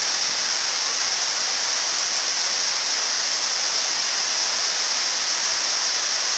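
Steady hiss of heavy rain together with the rush of flash-flood water pouring across the field.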